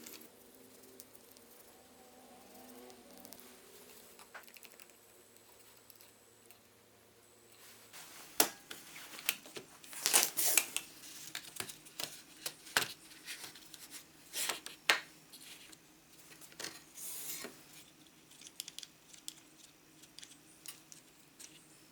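Hand handling of small objects: sharp clicks and taps with rustling in between, starting about eight seconds in after a quiet stretch.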